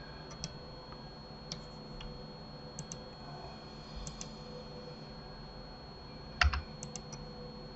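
Computer keyboard keys clicking now and then, several as quick double clicks, with a louder knock about six and a half seconds in, over a faint steady electrical hum.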